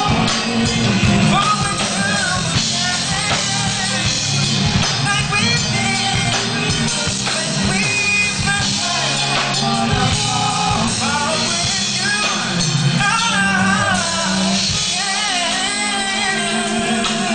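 Live R&B band performance: a male lead vocalist sings sliding, melismatic lines into a microphone over drums, bass and guitar.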